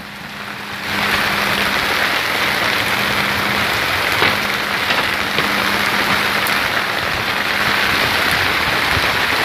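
Heavy rain pouring down in a storm: a dense, steady hiss that grows louder about a second in, with a faint steady low hum underneath.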